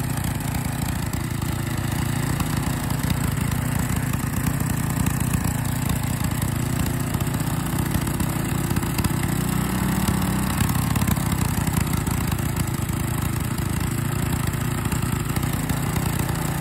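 Small air-cooled single-cylinder aluminium engine running steadily, with a brief rise in pitch about ten seconds in, while liquid gallium is drawn through its carburettor. It keeps running without stalling.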